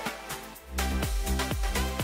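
Background music with a steady beat. The deep bass drops away and comes back in strongly a little under a second in.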